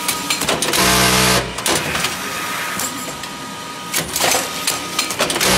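Warehouse box strapping machine cycling on cartons: a loud whirring burst of about half a second a little under a second in, then clattering and clicks, and a second burst near the end.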